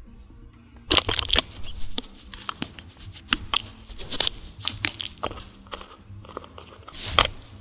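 A cat rubbing its head against a microphone, heard as rough scraping and crackling rub noise on the mic in irregular strokes, starting about a second in.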